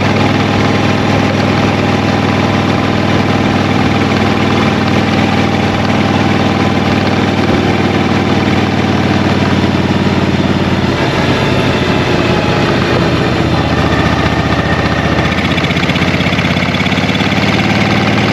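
Motorcycle engine running steadily under broad wind and road noise; the engine note shifts about two-thirds of the way through and again a few seconds later.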